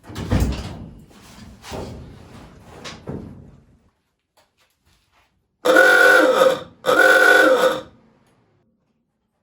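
Electric ahooga horn sounding two loud blasts, each just under a second, with a bending pitch, freshly cleaned of grease after it had sounded like a dying duck. Before them come a few rough, noisy bursts that fade out.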